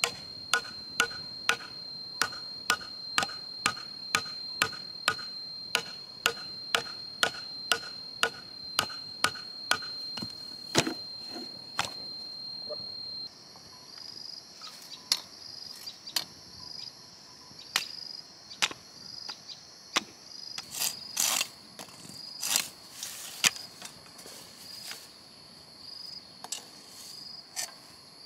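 Repeated blows of a hand tool on bamboo, evenly about two a second for the first twelve seconds, then slower and irregular. Under them runs a steady high drone of insects, which turns higher and pulsing about halfway through.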